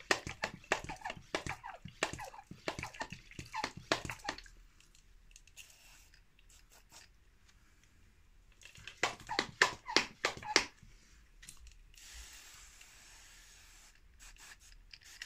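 Hand mist sprayer being worked for misting, with rapid clicking strokes in two runs and a short hiss of spray about twelve seconds in.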